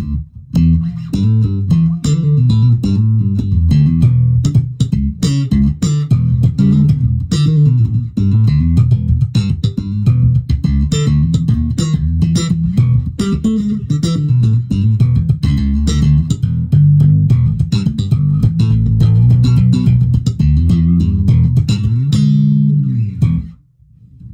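Suhr four-string electric bass with a roasted maple neck and one-piece ash body, played in a quick, busy line of plucked notes. It stops on a last held note about a second before the end.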